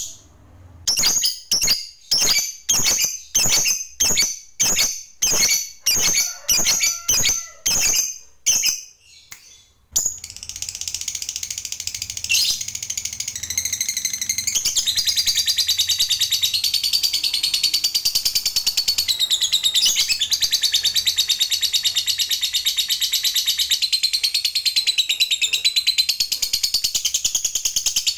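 Lovebird calling: sharp, high chirps about two a second for the first ten seconds. It then breaks into a long unbroken rapid chatter, the 'ngekek panjang' (long chattering song) prized in singing lovebirds.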